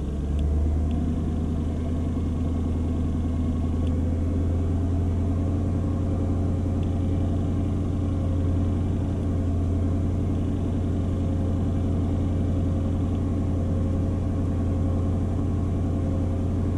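Mercedes AMG V8 engine idling in Drive with the car held stationary, its note dropping and firming slightly about half a second in as the gearbox takes load, then running steadily. The load is put on to watch the fuel trims, with bank 2 adding fuel on an engine that has lean codes and a misfire.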